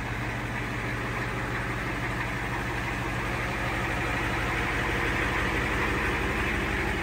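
A Ford F-250's IDI diesel engine idling steadily.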